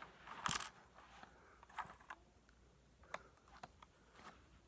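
Faint small plastic clicks and taps of LEGO pieces being handled, with a brief louder rustle about half a second in.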